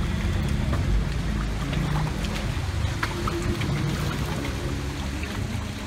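Motorboat engine running at a steady pitch, with water rushing and splashing along the hull.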